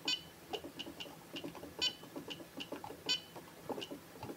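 Short electronic beeps from the ISDT C4 EVO charger's buttons, about a dozen at irregular spacing as its settings menu is scrolled, three of them louder, with faint button clicks.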